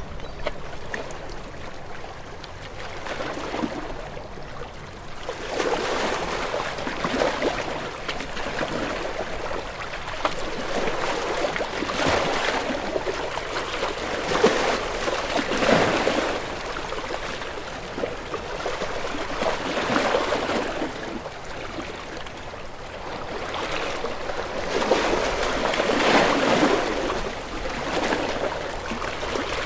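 Sea waves washing in, swelling to a louder surge every four to six seconds and falling back between them.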